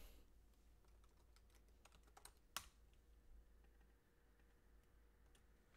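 Faint computer keyboard typing: a short run of quick key taps about two seconds in, ending in one louder key press, with a few stray clicks later; otherwise near silence.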